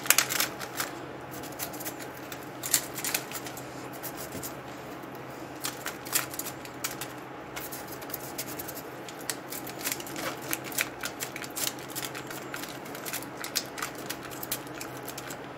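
Crushed ice being pressed and packed by hand into a plastic cup around a wooden stick, and scooped from a steel bowl, with irregular crunching and crackling clicks throughout.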